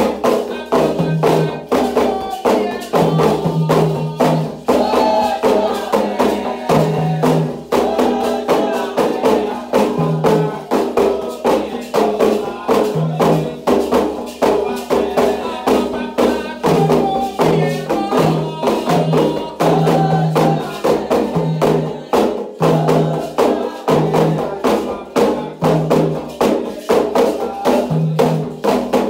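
Candomblé ritual music: atabaque hand drums and a metal bell keeping a fast, steady beat under group singing.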